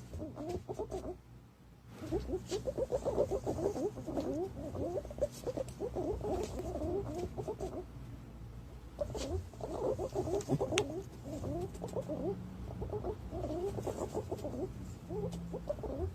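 Green pigeons calling: fast runs of short, low, wavering notes in long phrases, broken by brief pauses about a second in and again about halfway through.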